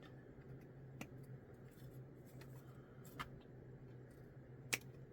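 Three faint sharp clicks of plastic kit parts being snipped and handled at the workbench, over a low steady hum.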